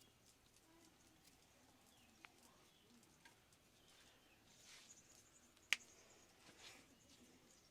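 Near silence with soft rustling and faint scattered ticks of hands working over hair and scalp in a head massage. One sharp click comes a little past halfway.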